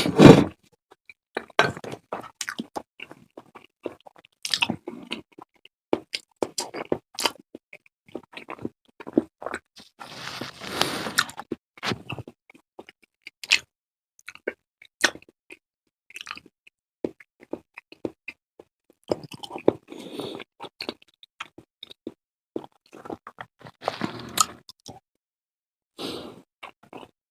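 Close-miked eating: wet chewing, smacking and biting in short, irregular bursts, with a longer noisy stretch about ten seconds in.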